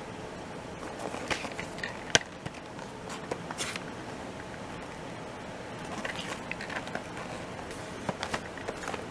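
Cardboard toy-train box being handled, with light rustles and scrapes and one sharp click about two seconds in, over a steady faint hiss.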